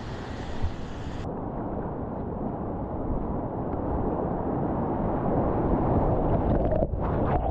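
Rushing whitewater of a river rapid, a steady roar of water that grows steadily louder.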